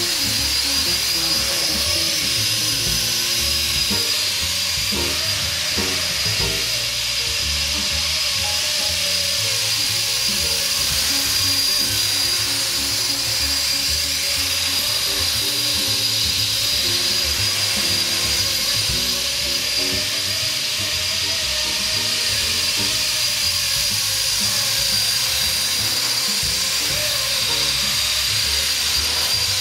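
Blade SR electric radio-controlled helicopter flying, its motor and rotor giving a steady high whine, with music playing throughout.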